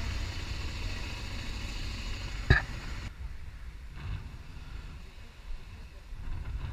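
Trail motorcycle engine running at low speed, with one sharp knock about two and a half seconds in. After about three seconds the engine sound stops abruptly and a quieter low rumble of wind remains.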